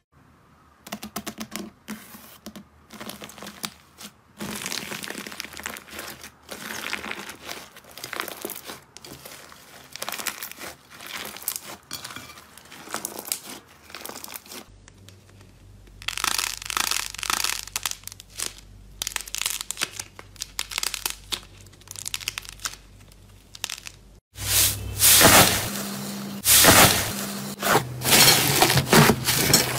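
Hands crushing a cracked, crusty layer of slime: runs of crisp crackling and crinkling. From about fifteen seconds in, hands press and knead soft slime, with squishing and popping that is loudest in the last few seconds.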